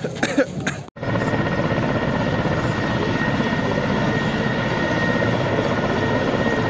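Military helicopter running on the ground: a steady rotor and engine noise with a fine fast flutter and a steady high whine over it. It starts abruptly about a second in.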